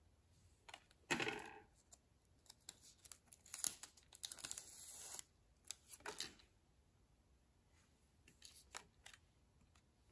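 Trading cards being flipped through by hand: faint rustles and soft flicks of card stock sliding over card stock, with a louder brush about a second in and a longer rustle around four to five seconds.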